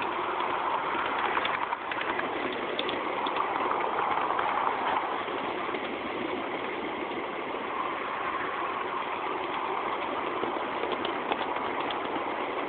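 Steady running noise of a ride-on miniature railway train heard from aboard: the small locomotive running and the cars rolling along the track, with a few light clicks.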